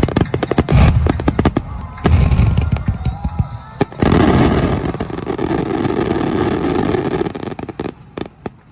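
Aerial fireworks exploding: rapid irregular bangs, then about four seconds in a dense run of overlapping bursts that fades out near the end.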